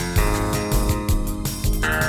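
Siemens Xelibri 5 ringtone melody played back as MIDI music on a rock-style soundfont, with a steady beat; the chord shifts up a little before the end.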